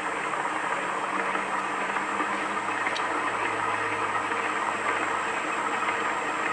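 Pro Planet Genie three-headed planetary concrete floor grinder running steadily at about 1100 RPM, polishing speed: an even, dense whirring hiss over a low motor hum, with a faint high whine above it.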